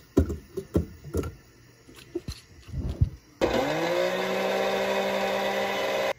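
A string of knocks and clatters as a small personal blender jar is loaded with apple chunks and kale and fitted to its base. About three and a half seconds in, the Shinil personal blender's motor is switched on; it spins up quickly, runs at one steady pitch while blending, and cuts off suddenly.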